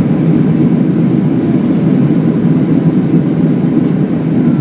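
Steady cabin noise of an Airbus A319 climbing after take-off: the jet engines and rushing air heard inside the cabin, a loud, even low rumble with a faint steady tone above it.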